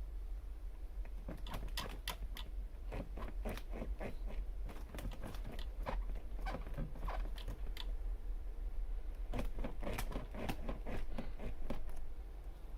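Irregular clicks and taps of small hard parts being handled, in two spells with a short pause between them, over a steady low hum.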